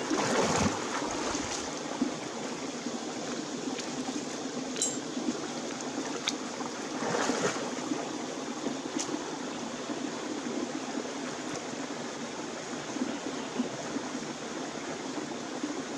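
Shallow rocky stream running steadily, with water splashing as a person wades and works their hands through it, loudest about half a second in and again around seven seconds.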